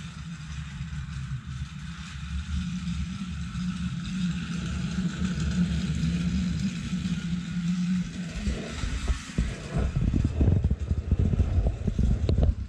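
Motorized toy Amtrak train running around its plastic track, a steady buzzing motor hum. From about eight seconds in, irregular low thumps and rumbling grow louder over it.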